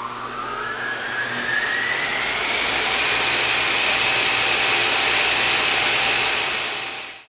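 A motor-driven machine spinning up: a whine rises in pitch over the first few seconds over a rushing, airy noise, then levels off into a steady high run and cuts off just before the end.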